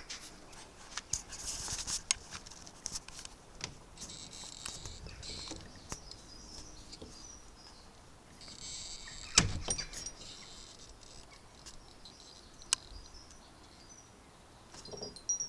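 Unlocking and opening wooden summerhouse doors: a metal lock and keys rattling and clicking in two spells, with a sharp knock about nine and a half seconds in.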